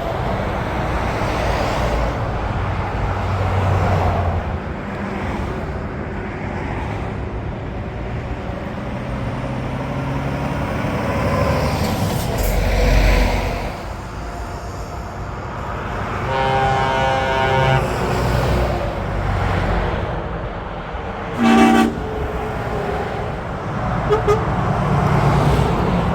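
Motorway traffic of heavy lorries passing, with diesel engines and tyres swelling as each goes by. A truck air horn sounds for about two seconds past the middle. A short, loud horn blast follows a few seconds later, and there are brief toots near the end.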